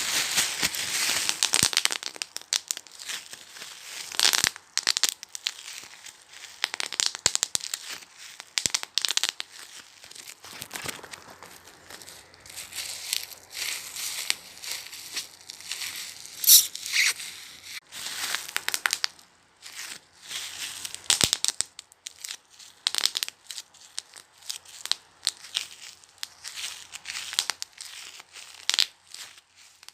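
Bubble wrap being handled and squeezed: plastic crinkling, with bubbles popping in many irregular sharp cracks.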